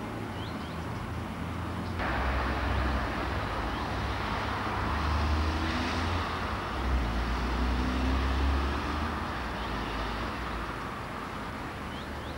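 Distant road traffic noise from the town below, a steady rumble that gets suddenly louder about two seconds in.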